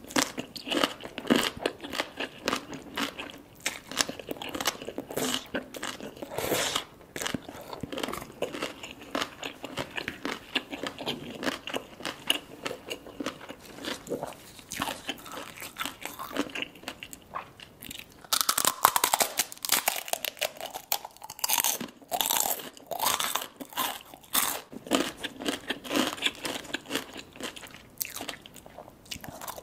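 Eating sounds: chewing a mouthful of green papaya salad, then crisp crunching from bites of fried crunchy pieces, with a run of louder crunches about two-thirds of the way through.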